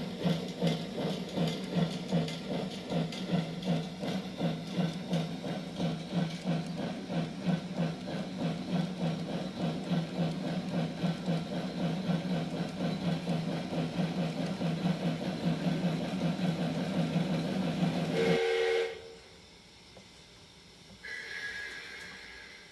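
Steam-locomotive sound effects played through a KATO model-railway sound box: rhythmic exhaust chuffing with steam hiss. The chuffing cuts off suddenly about 18 seconds in with a short whistle blast, and a second short whistle-like tone follows a few seconds later.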